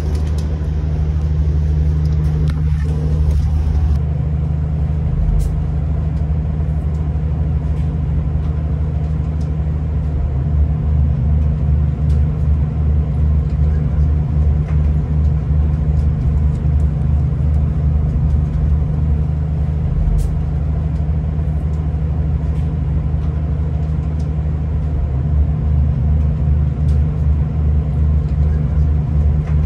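Diesel train's engine running with a steady low rumble heard from inside the passenger carriage. A faster rhythmic throb comes in about ten seconds in and eases off near the end.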